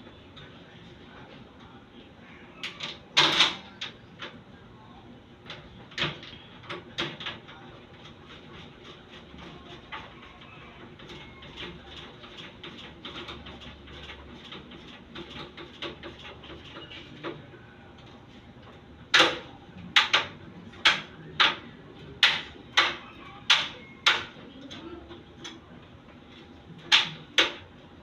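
Sharp metallic clicks and taps from the latch hardware of an aluminium sliding screen door being worked by hand. A few scattered ones come in the first half, then a quick run of about a dozen, roughly one or two a second, in the second half.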